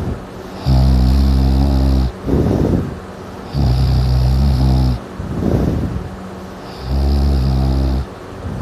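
Loud snoring "like a buzz saw": three rattling snores about three seconds apart, each followed by a softer, breathier sound.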